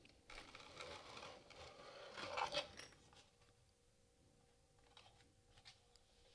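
Faint scraping and rustling of packaging being handled for about three seconds, then near silence broken by two faint ticks.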